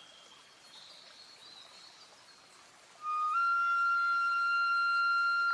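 Background music: quiet at first, then about three seconds in a flute enters with one long held note, scooping up slightly at its start.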